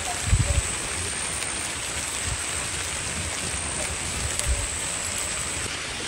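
Steady rain falling, an even hiss, with a few dull low thumps, the loudest about half a second in.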